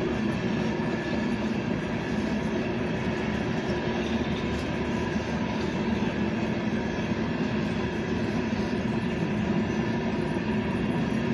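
Train running steadily: a continuous, even rumble with faint steady humming tones.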